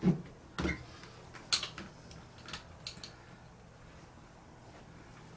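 A few short knocks and clicks: two dull thuds at the start, a sharper click about a second and a half in, and two smaller ticks a second or so later, then only faint room tone.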